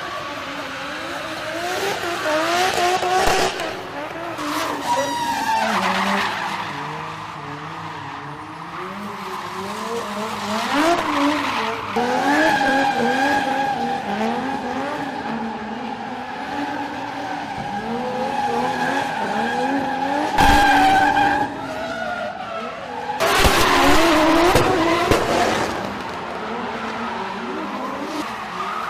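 Drift car's engine revving up and falling back again and again as it slides, with tyres squealing in a long steady note through the middle and loud bursts of tyre noise several times.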